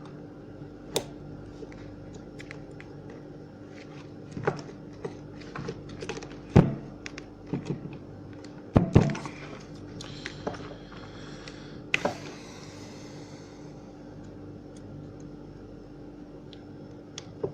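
Scattered small clicks and knocks of hand-tool and plastic handling while a latch on an impact drill's trigger switch is pried back to pull out a wire, over a low steady hum.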